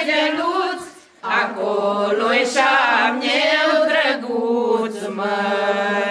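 A group of women singing a folk song unaccompanied, all on one melody. One phrase ends about a second in, and after a short breath a long held phrase follows, ending near the end.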